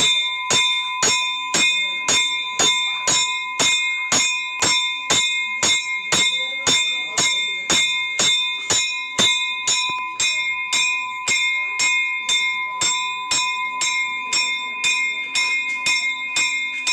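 Hindu temple bell rung without a break, struck about twice a second in an even rhythm, its ringing tone carrying on between strokes.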